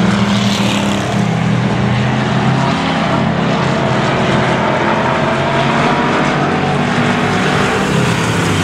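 Engines of several hobby stock race cars running as they lap a dirt oval, loud and steady, their pitch rising and falling as the cars pass.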